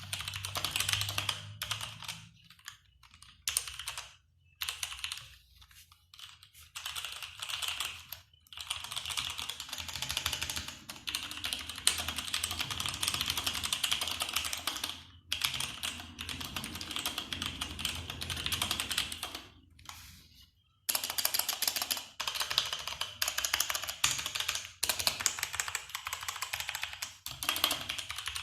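Typing on a Nisuta 60% mechanical keyboard with Outemu Red linear switches: fast runs of key clicks in bursts, broken by several short pauses.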